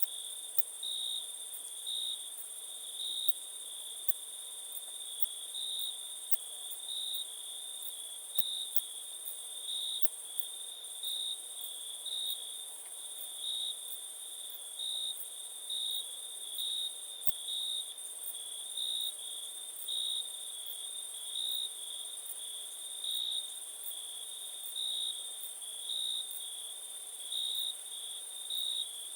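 Crickets chirping: a continuous high trill with louder chirps repeating about once a second, over a second, higher steady trill.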